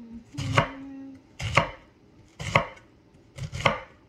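Santoku-style chef's knife slicing through a cabbage wedge and striking a bamboo cutting board: about one cut a second, the last a quick double cut.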